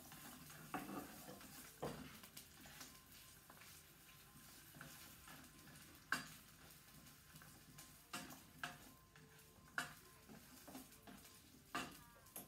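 Light, scattered clinks and knocks of kitchen utensils against bowls and a pan during food preparation, with a handful of sharper knocks spread through.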